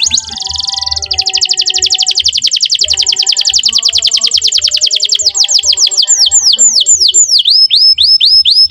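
Domestic canary singing a very fast trill of repeated high notes, which slows about six seconds in into a run of separate, downward-sweeping notes. Quieter background music with a low beat plays underneath.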